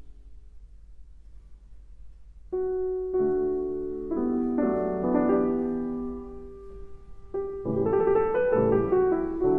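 Solo piano playing classical music. After a pause of about two and a half seconds, sustained chords enter softly, and the playing grows fuller near the end.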